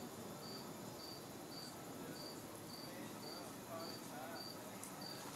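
A cricket chirping steadily, short high chirps just under two a second, over a low background hum.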